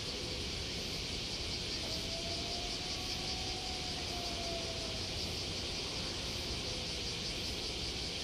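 Steady outdoor shipyard background noise: a continuous high hiss over a low rumble, with a faint tone that rises and falls in pitch from about two to five seconds in.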